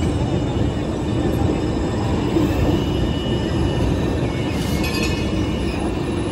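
Electric city tram passing close by: a steady rumble of wheels on rails with a faint high whine, and a short run of clicks about five seconds in.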